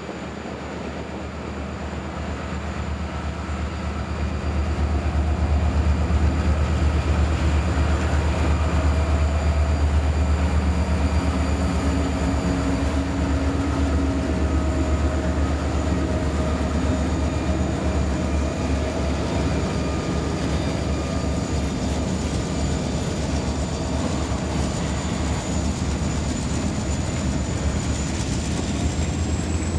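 A trio of EMD GP-series diesel locomotives passing close by under power. Their low engine sound is loudest from about five to fifteen seconds in, then gives way to the steady rolling clatter of freight gondola cars going past.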